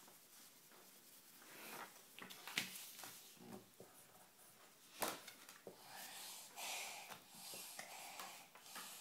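Faint scratching and rubbing of a child writing letters with a writing tool, with two sharp taps, the first about two and a half seconds in and the second about five seconds in.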